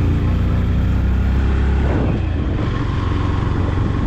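Motorcycle engine running steadily while riding, a low hum whose note shifts about halfway through, with road and wind noise.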